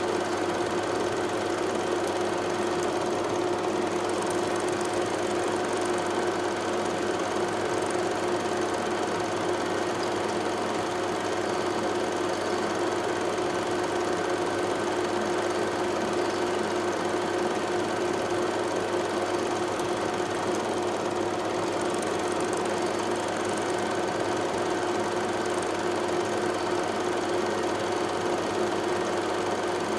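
Steady mechanical hum made of several constant tones, unchanging in pitch and level.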